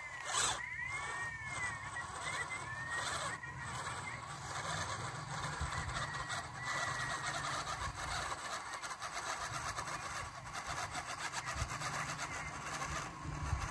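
Small electric motor and gearbox of an RC scale crawler whining steadily as the truck crawls up a loose dirt slope.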